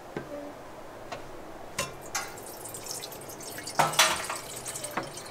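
Water poured from a plastic jug into a stainless steel pot, splashing and dripping, with a few sharp knocks; the loudest comes about four seconds in.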